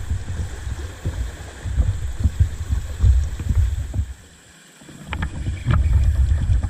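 Wind buffeting the microphone: a loud, gusty low rumble that drops away for about a second past the middle, then comes back. A few light clicks are heard as it returns.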